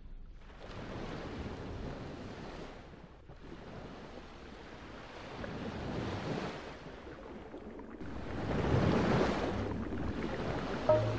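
Ocean surf: waves washing in and drawing back, a hiss that swells and ebbs every few seconds and grows louder near the end.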